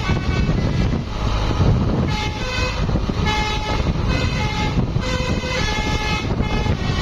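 Indonesian 'telolet' bus horn playing its multi-note melody: short steady tones stepping up and down in pitch, in phrases that repeat about once a second, over bus engine and road rumble. The horn drops out briefly near the start and comes back about two seconds in.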